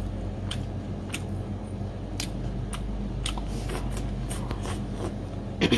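Close-up eating sounds of spicy marinated scallop being bitten and chewed: short wet clicks and smacks, roughly two a second, with one louder smack just before the end.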